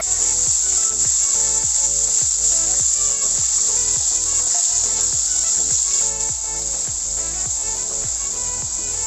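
Background music with a steady beat of low thumps, about two to three a second, over a continuous high-pitched hiss.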